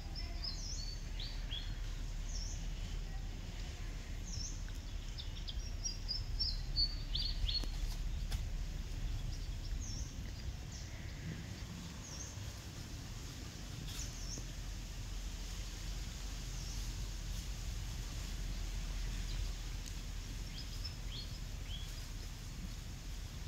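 Outdoor background with a steady low rumble and scattered short, high bird chirps. The chirps are busiest in the first several seconds and sparse after that.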